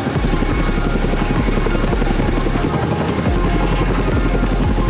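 Boeing CH-47 Chinook tandem-rotor helicopter hovering low and setting down, its twin rotors beating rapidly over a steady high turbine whine.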